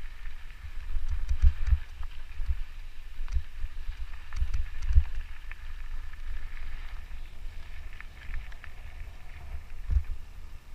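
Mountain bike rolling down a gravel trail: wind buffets the microphone in an uneven low rumble, over tyre crunch, with scattered sharp rattles as the bike goes over bumps.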